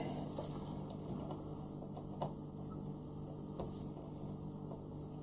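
Faint rubbing and rustling of a plastic-gloved hand smoothing a thin adhesive wooden deck sheet onto a plastic model ship deck, with a few light clicks, over a steady low hum.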